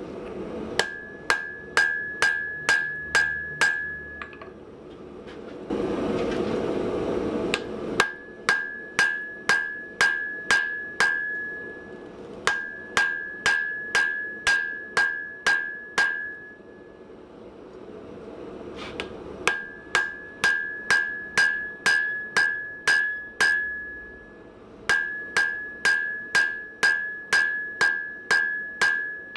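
Hand hammer striking hot steel on an anvil as the hammer head's peen is drawn out. The blows come in runs of seven or eight, about two a second, each with a bright ring from the anvil, with pauses between runs. There is a brief burst of rushing noise about six seconds in.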